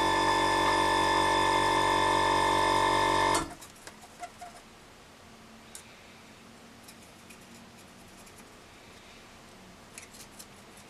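Small airbrush compressor running with a steady hum, cutting off suddenly about three and a half seconds in. After that only faint clicks and light brushing as a paintbrush works pigment over a plastic model.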